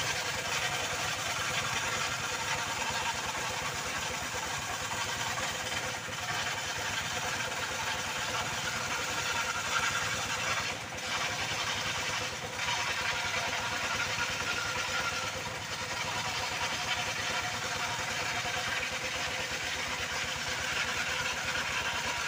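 Circular saw blade running and cutting through old timber: a steady machine drone with a pitched whine, dipping briefly a few times around the middle.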